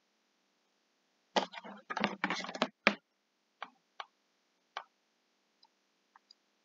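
Clicking and tapping from working a computer's on-screen drawing tool: a quick run of sharp clicks for about a second and a half, then a few single clicks, the last ones faint.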